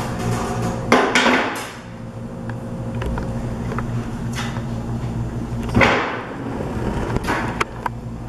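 A hand meat saw finishing its cut through pork rib bones about a second in, followed by knocks, clicks and a thump as the saw is laid on the table and the hog side is handled and cut. A low steady hum runs underneath.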